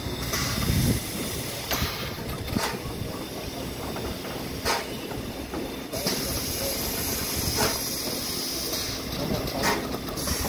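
Steady hiss of steam escaping from a standing steam locomotive, with a few short, sharp clicks or knocks at irregular moments; the hiss turns brighter about halfway through.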